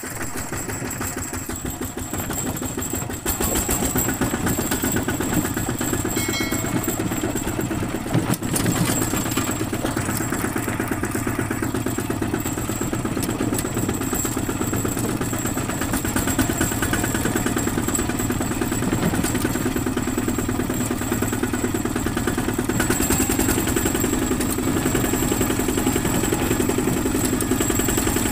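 Single-cylinder diesel engine of a ZT two-wheel walking tractor chugging steadily with an even, rapid pulse as the tractor drives along. It gets louder about three seconds in and then holds steady.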